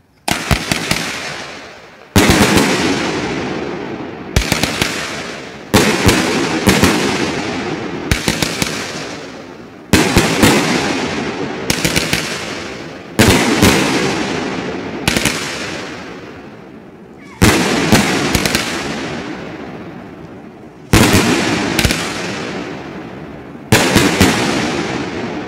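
A 200-gram, 25-shot fanned salute cake firing its shots in sequence. Each shot gives a sharp, loud bang, and the bangs come in quick groups a second or two apart, each one rolling off in a long echo.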